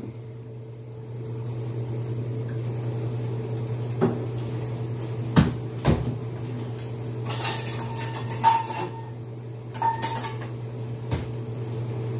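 Kitchen clatter: metal utensils clinking and a cupboard knocking, a handful of separate sharp clinks and knocks, some with a brief metallic ring, over a steady low hum.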